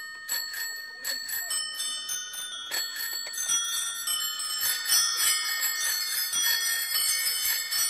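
Many bicycle bells ringing over and over as a crowd of cyclists rides off. The rings overlap into a dense jangle in the second half.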